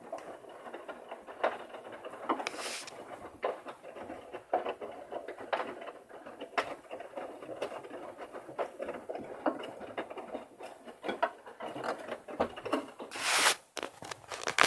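Washing machine running a wash: the drum tumbling, with irregular pattering and clicking as the load and water slosh around, and a louder knock near the end.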